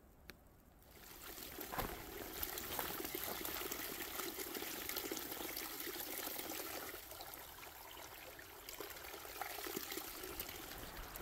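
Spring water trickling and splashing into a water bottle held in the small flow to fill it, beginning about a second in and running steadily after that.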